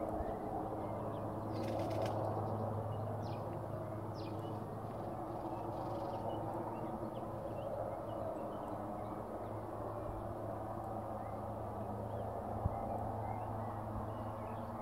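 Steady low outdoor rumble with a constant hum, with faint short bird chirps scattered through it and one brief click near the end.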